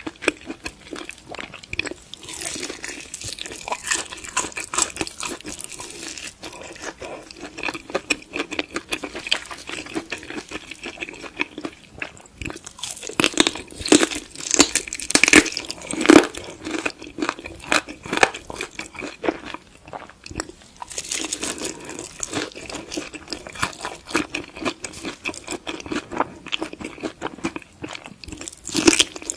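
Close-miked chewing and crunching of food: rapid, irregular crunches, with a louder run of bites around the middle.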